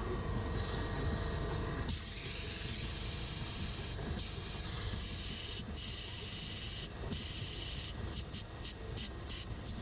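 A loud high hiss of spray that starts abruptly, stops and starts a few times, then comes in rapid short squirts near the end, over a steady low rumble.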